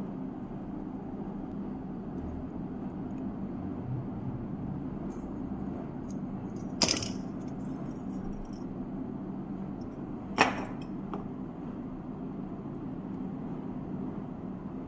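Hot air gun's blower motor running with a steady hum, broken by two sharp clicks, about seven and ten and a half seconds in.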